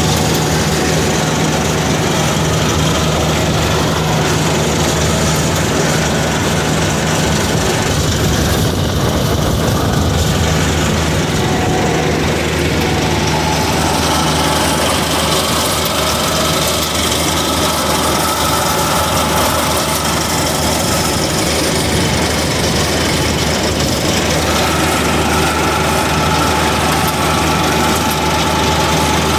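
Tractor engine running steadily, powering a haybine mower-conditioner cutting hay.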